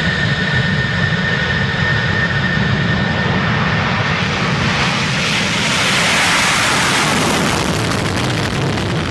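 Twin-engine jet interceptor on its takeoff roll with afterburners lit. A steady low rumble runs under a high engine whine that fades after the first few seconds, while a rushing noise swells to its loudest about six to seven seconds in as the jet passes.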